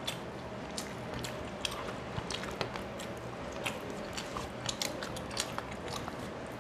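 Close-up chewing of rice and rui fish curry eaten by hand, with a string of short wet mouth clicks and smacks, and fingers mixing rice on a steel plate.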